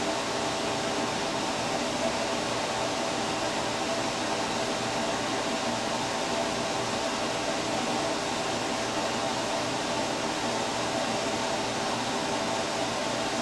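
Steady fan-like hum and hiss of room noise, with a few faint steady tones running through it.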